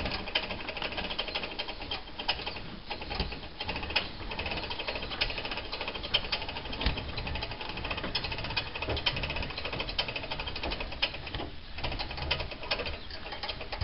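Hand-cranked boat trailer winch being wound under heavy load, clicking rapidly and evenly as it hauls a boat onto its trailer.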